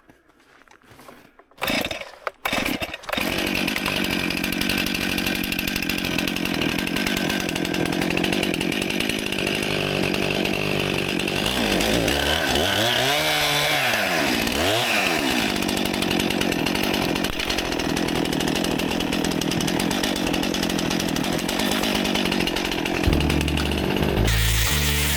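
Stihl MS261 C-M two-stroke chainsaw starting about two seconds in, then running at high revs, cutting wood. Its engine speed dips and climbs back twice around the middle. Background music comes in near the end.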